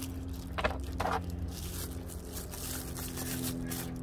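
Plastic bag and bubble wrap rustling and crinkling as they are handled, with a couple of sharper crinkles about half a second and a second in. A steady low hum runs underneath.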